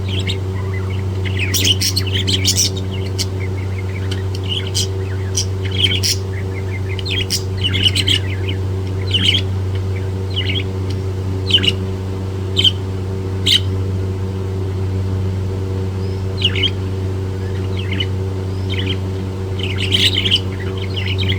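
Budgerigar chirping and squawking in short, sharp calls scattered irregularly, over a steady low electrical hum.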